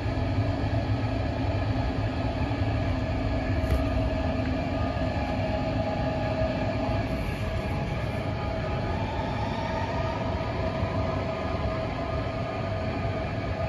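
Alstom Metropolis C830C metro train departing: a steady rumble with several held whining tones. A low hum drops out about halfway, and a rising whine starts about two-thirds in as the train picks up speed.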